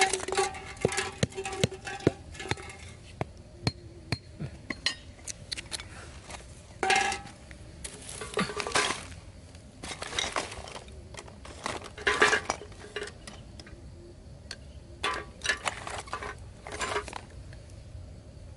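An empty aluminium drink can knocks and rings as it is laid on hard ground, the ring dying away over about two seconds, with a second ringing knock about seven seconds in. Scattered clinks, taps and scrapes of hands handling the can, bamboo stakes and wire run around it.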